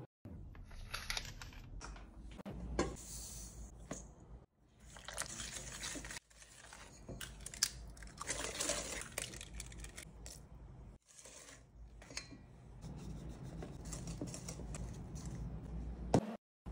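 Kitchen baking sounds in short cut-together clips: rustling and tearing, an egg cracked into a stainless steel mixing bowl, and a whisk clinking and scraping through thick brownie batter, with a few sharp clicks.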